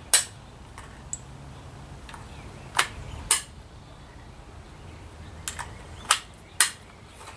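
Rifle gunshots: five sharp reports, one just after the start, then two pairs about half a second apart near the middle and about two-thirds through, with a few fainter cracks between.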